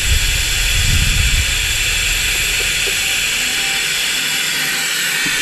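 Compressed air hissing steadily through a pneumatic venturi vacuum oil extractor as it sucks warm engine oil out of the diesel's crankcase.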